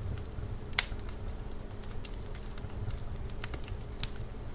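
Scattered light clicks and knocks of bricks and tools being handled during bricklaying, with one sharp knock about a second in, over a low street rumble.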